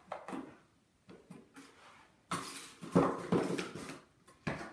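Small cardboard boxes being nosed and knocked about on a hard concrete floor by a dog searching them: a few light taps at first, then a louder run of scraping and clattering about two to four seconds in.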